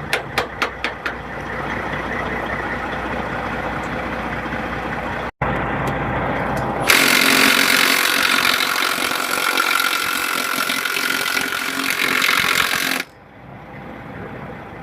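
A truck engine idles under a quick run of clicks. Then, for about six seconds, an impact wrench runs loud with a hissing, hammering rattle while loosening a tight cab-shock bolt, and it stops abruptly.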